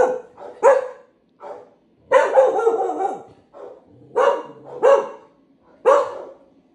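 Australian shepherd giving alert barks: about five loud single barks roughly a second apart, with a longer drawn-out one about two seconds in and quieter ones between.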